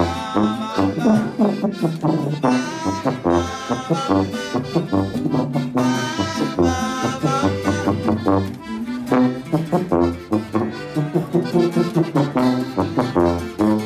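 A small live Mexican band playing: an accordion carries the melody over a sousaphone's bouncing bass line, with a twelve-string guitar strumming along.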